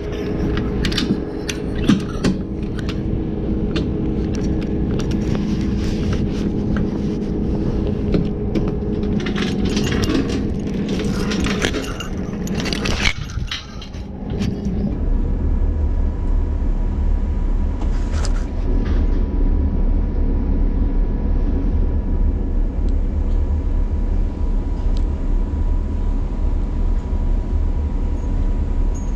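Liebherr LTM mobile crane's diesel engine running, with a lot of clattering and rattling over it for the first half as the operator gets into the crane cab. About halfway in the rattling stops and the engine becomes a steady deep rumble heard from inside the cab.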